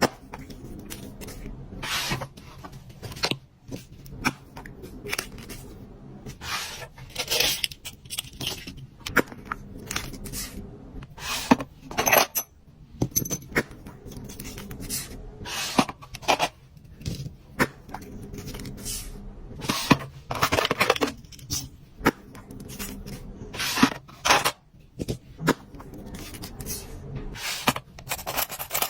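Hands unpacking a box of small accessories: little hard items clicking and tapping against each other and the box, mixed with short rustles and scrapes of packaging, coming irregularly.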